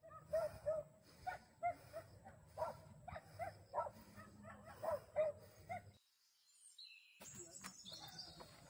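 A dog barking repeatedly, about a dozen short barks in six seconds, which then stop abruptly.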